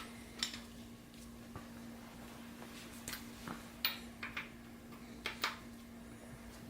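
Scattered metallic clinks and taps of a socket wrench working the cylinder head bolts through their 90-degree tightening turn, several in quick succession about halfway through, over a steady hum.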